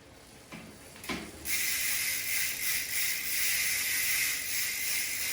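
Rear freehub of a Trek Roscoe 8's Bontrager Line 40 wheel ratcheting steadily as the wheel freewheels, a high-pitched buzz that starts about a second and a half in.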